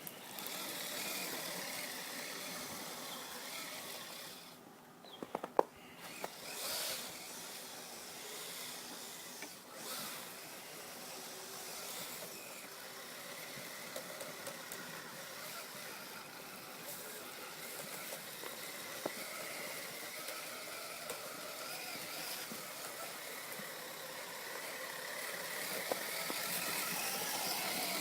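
R/C tracked snow vehicle (Kyosho Blizzard SR) running through snow: its electric motor whines, rising and falling with the throttle, over the rustle of the tracks. A few sharp knocks come about five seconds in.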